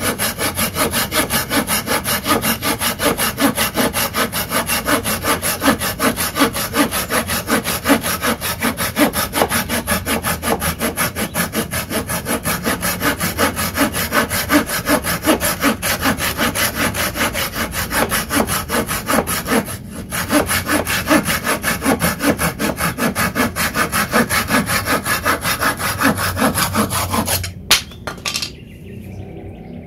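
Takagi Shark Saw folding hand saw cutting through a wooden block in quick, steady back-and-forth strokes, with a brief break near two-thirds of the way. Near the end the cut goes through and the sawing stops, with a couple of sharp knocks.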